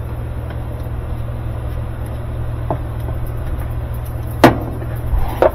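Steady low background hum with a single sharp knock near the end, as washer parts are handled, and a few small clicks after it.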